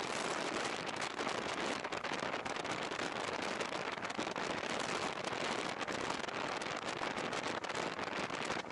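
Wind and rain noise on a Sony X3000 action camera's microphone on a moving motorbike: a steady dense hiss full of sharp crackles. It is typical of a wet microphone giving tearing, crackling noise.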